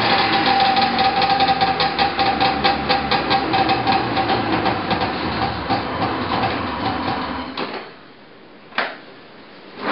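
Arctic Cat Jag snowmobile's two-stroke engine running on a cold start, with a fast, rattly ticking, then dying away about seven and a half seconds in. A single sharp knock follows about a second later.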